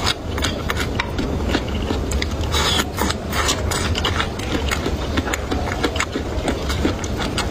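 Close-miked eating sounds: rapid, irregular wet clicks, smacks and crunches of chewing, over a low steady hum.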